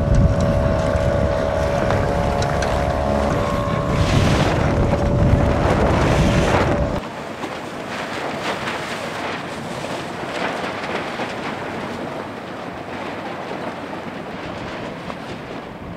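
Wind buffeting the microphone, with a steady droning tone of a few pitches under it; about seven seconds in, both cut off and a softer wash of wind and water with light ticks remains.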